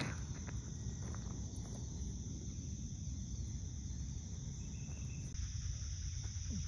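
Steady high-pitched insect chorus over a low background rumble, with no single loud event.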